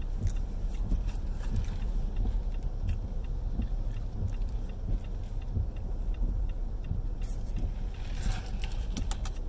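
Steady low rumble of a car driving, heard from inside the cabin, with light clicks and rattles throughout and a quick flurry of them near the end.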